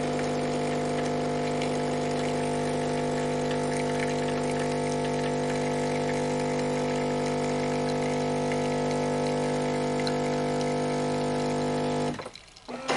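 Miele CM6 coffee machine's water pump running steadily as the machine rinses, a constant hum with water flowing; it cuts off near the end as the rinse finishes.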